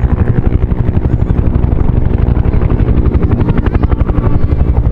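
Two Bell UH-1H Huey helicopters flying in close formation, the two-bladed main rotors beating in a fast, even chop over the steady drone of their turbine engines.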